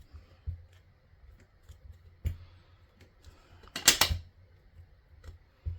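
Small clicks and taps of hands handling clay and tools on a desk, with one louder brief rustling noise about four seconds in.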